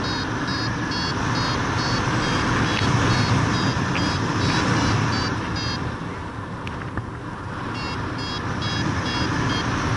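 Wind rushing over the microphone in flight, with a paraglider variometer beeping rapidly and evenly, about two high beeps a second. The beeping stops for about two seconds midway and then starts again. This is the variometer's climb tone, the sign of the glider rising in lift.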